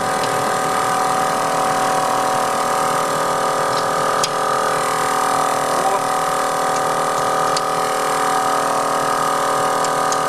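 A motor running steadily with an even hum, with a few faint clicks of a wrench on the wheel's lug nuts.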